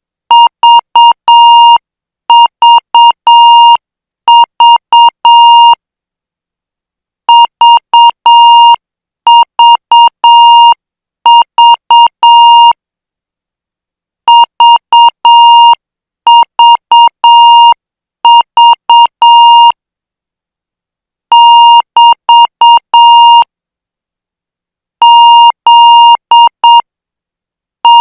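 Morse code practice tones sent at 8 words per minute: a steady buzzy beep near 1 kHz keyed into dots and dashes. The characters come in groups of three, with a longer pause after each group.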